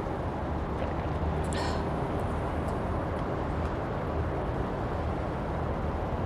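Steady low rumbling noise from an outdoor recording made on the run, with one short high chirp about a second and a half in.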